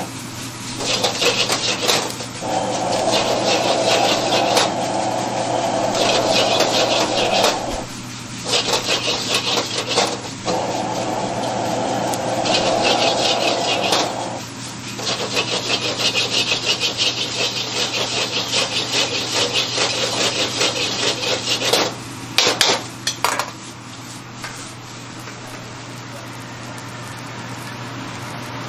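Metal ladle scraping rapidly and clanking against a steel wok as egg fried rice is stir-fried, over a steady low hum. The scraping dies down near the end.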